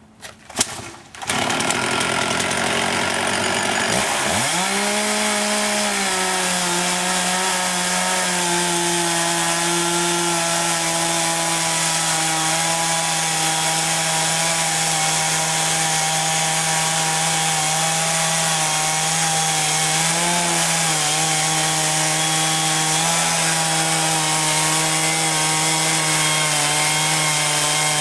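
Gas engine of a portable sawmill starting about a second in, revving up at about four seconds and then running steadily at high speed while the saw cuts, with brief dips in pitch as it takes load.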